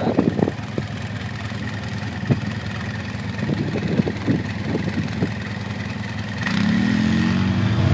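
ATV engine running under way on a rough dirt trail, with scattered knocks and rattles from bumps. The engine speeds up and gets louder about six and a half seconds in.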